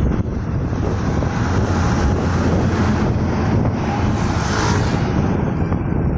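Traffic heard from a moving vehicle: a steady low rumble with wind on the microphone. A tandem-axle dump truck overtakes close by, and its engine and tyre noise swells to a peak about four to five seconds in, then drops away.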